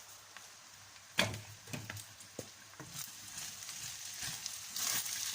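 Spoon or spatula stirring fried rice in a hot pot: a sharp knock about a second in, then irregular scraping and clicking with a faint sizzle.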